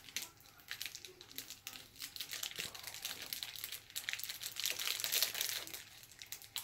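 Packaging being handled, crinkling and rustling in irregular bunches of small crackles.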